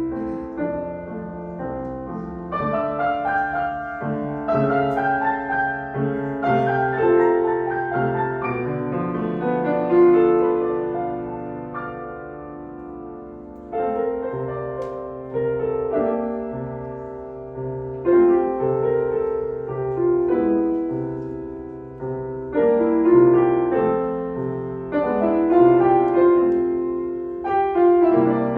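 Solo piano playing a short classical teaching piece: chords and melody notes struck in short phrases, each decaying before the next group begins.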